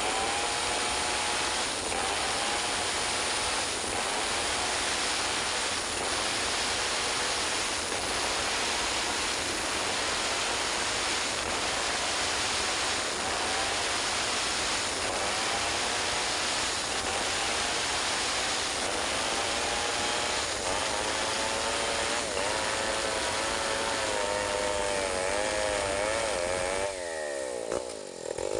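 Stihl 070 two-stroke chainsaw running at full throttle, ripping lengthwise along a log to cut a beam; the engine note wavers under the load of the cut. Near the end the level dips and the engine pitch drops and sweeps briefly.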